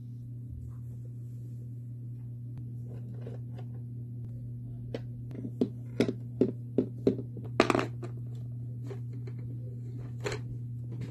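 Sharp plastic clicks and knocks as toy horses and a plastic toy horse trailer are handled on a wooden floor, about eight in quick succession in the middle and one more near the end, over a steady low hum.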